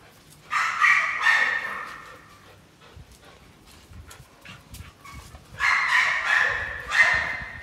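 A pit bull terrier working a spring-pole toy. There are two loud bursts, each starting sharply and fading over about two seconds: the first about half a second in, the second about five seconds later with a fresh peak near the end. Faint scattered clicks come between them.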